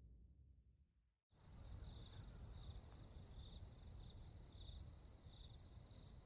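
Faint outdoor nature ambience: an insect trilling in a high, repeating pulse over a low rumble. It starts about a second in, after a brief moment of silence.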